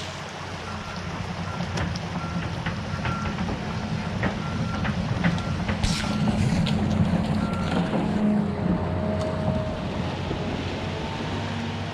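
Excavator's diesel engine running under load with its travel alarm beeping at a steady rate, the beeping stopping about eight seconds in, over the rush of creek water pouring through a breached beaver dam.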